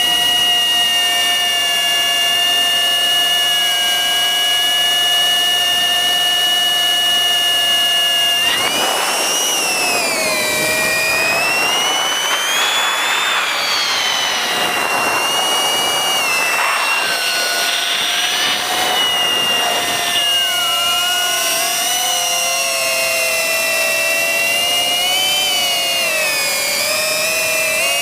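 FPV quadcopter's brushless motors and propellers whining, steady at first, then rising and falling in pitch with throttle changes from about eight seconds in, with bursts of rushing air through the middle.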